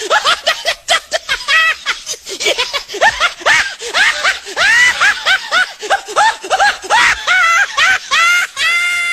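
Laughter sound effect: high-pitched giggling and snickering, a quick string of short rising-and-falling laugh notes.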